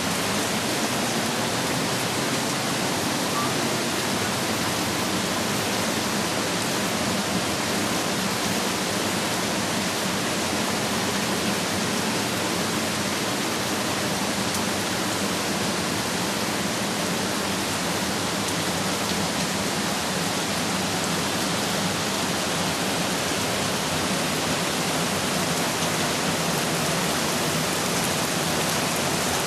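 Storm water making a steady, even rushing noise, loud and unbroken throughout.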